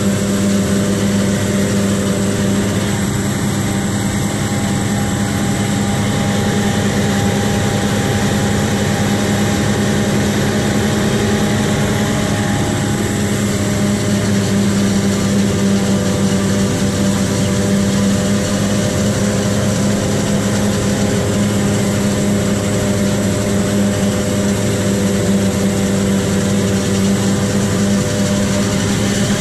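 Heavy diesel farm machinery at a maize silage harvest running steadily at constant speed, a continuous engine hum with no change in pitch.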